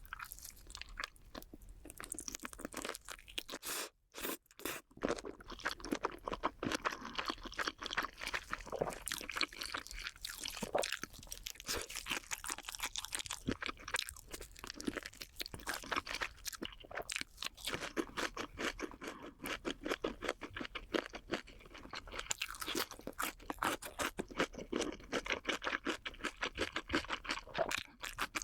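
Close-up chewing of crunchy food: a dense, continuous run of crunches, with a brief pause about four seconds in.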